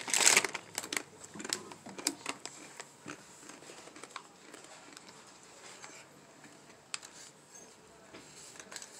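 Quiet eating sounds from an open aluminium-foil packet: a brief crinkle of foil at the start, then scattered light clicks and taps of a fork against the foil.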